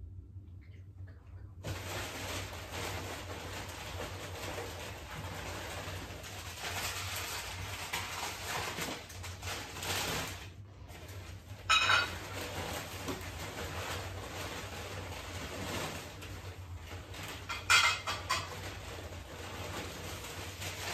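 Rustling of packing paper and bags as glassware is unwrapped, with two sharp clinks of glass dishes being set down, one near the middle and a louder one about three-quarters of the way through.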